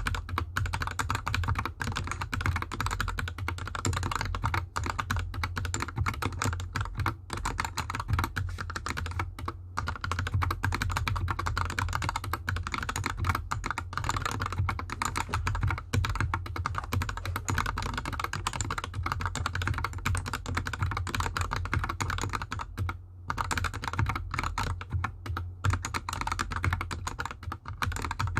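Fast, continuous typing on a GK64X mechanical keyboard with lubed Gateron Yellow linear switches and DSA keycaps, set directly on a bare desk with no mat, with one short pause near the end.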